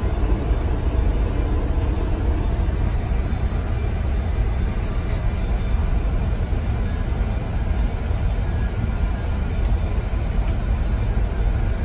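Steady low rumble and hiss of the background noise in an Airbus A330 flight deck, unchanging throughout.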